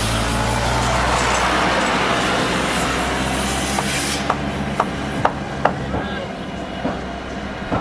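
Steady mechanical noise with a low hum, thinning out about four seconds in to scattered sharp knocks and taps, like machinery and hand tools at work.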